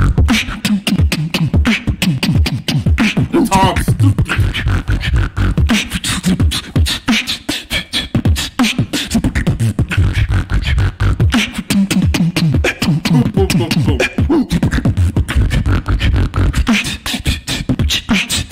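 Solo human beatboxing, performed live without a loop station. A fast, dense run of kick, snare and hi-hat mouth sounds plays over low hummed bass notes that slide up and down in pitch.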